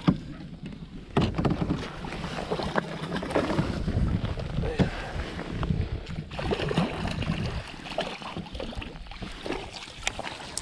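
Water splashing and sloshing beside a kayak as a small hooked striped bass is netted, with irregular knocks of the net and gear against the hull. Wind rumbles on the microphone underneath.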